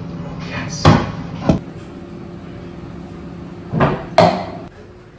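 A wooden kitchen cabinet door being opened and banged shut, two knocks close together near the four-second mark, after two earlier knocks about a second in. A low steady hum runs underneath and fades out near the end.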